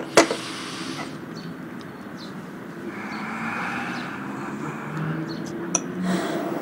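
Sharp metal clicks of a pistol being handled during cleaning, the loudest just after the start and another near the end, over a steady background noise.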